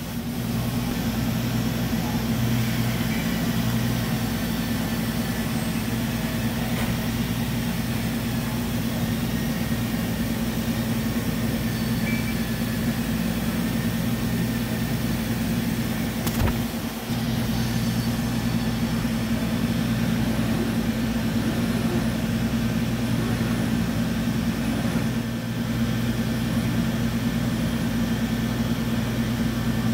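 Steady hum of a powered-up DMG DMU 100P duoBlock five-axis CNC vertical mill running, its motors and pumps giving a constant low drone. A single sharp click comes about sixteen seconds in.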